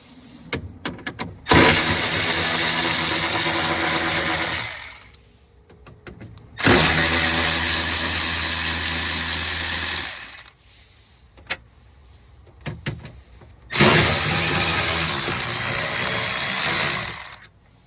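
A cordless power tool runs three times, each run about three and a half seconds long, backing out the three 10 mm bolts that hold a door speaker. Scattered clicks and taps of the socket and parts come between the runs.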